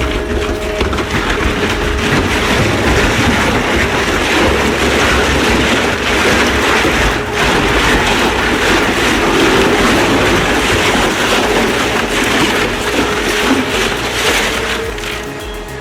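Heavy machinery running under load, grinding and crushing material: a dense continuous rattle over a steady hum, easing off near the end.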